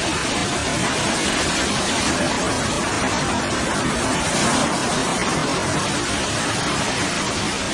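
Steady rushing noise of typhoon wind and surging floodwater, with no distinct knocks or tones.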